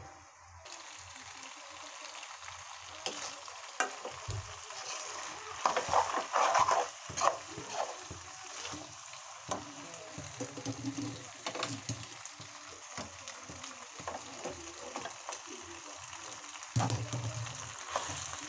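Macaroni with scrambled egg stir-frying in a steel pan, sizzling steadily, while a metal spoon stirs it and clicks and scrapes against the pan. The sizzle starts just after the beginning, and the scraping is busiest about six seconds in.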